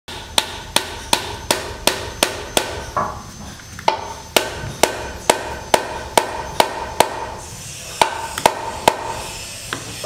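Steel hammer striking a nail in quick, even blows, nearly three a second, each with a short metallic ring. The blows come in three runs with brief pauses between them.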